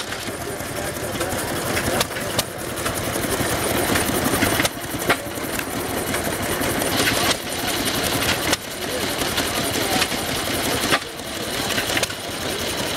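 A 1918 Standard Cream Separator Co. quarter-horsepower single-cylinder air-cooled gas engine running with a rapid, even beat. Its level drops suddenly several times and builds back up.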